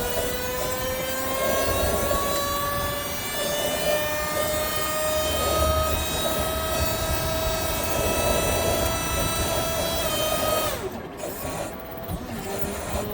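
Hydraulic pump held deadheaded at full pressure, running with a steady whine that creeps slowly up in pitch, then drops and eases off about ten seconds in as the load is let go. No screech comes: the replaced valve appears to have cured it.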